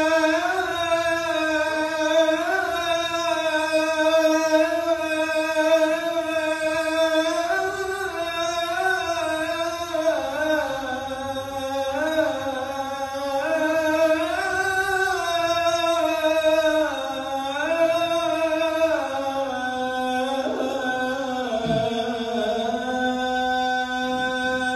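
A man chanting the adhan, the Islamic call to prayer, solo and unaccompanied. One long, drawn-out line is held and ornamented with many turns of pitch, then sinks lower near the end.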